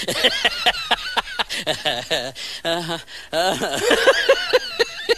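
A man laughing hard, in quick high-pitched peals, with a short pause about three seconds in.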